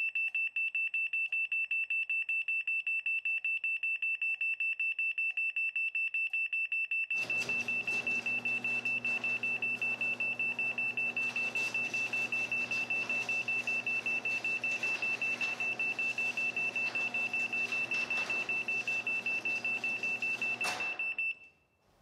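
LiftMaster MyQ garage door system sounding its rapid, high-pitched warning beeps for a remote (unattended) close. About seven seconds in, the garage door opener's motor starts with a steady hum and runs the door down while the beeping continues. Both stop together near the end as the door finishes closing.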